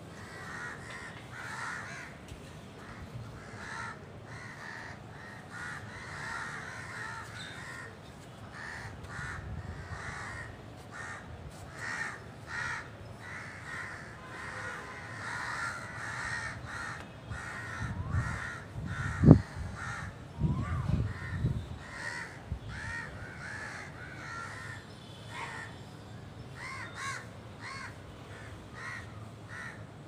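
Many birds calling at once in the tree canopy, a dense, unbroken chorus of short overlapping calls. About two-thirds of the way through come a few low thumps, one of them sharp and loud.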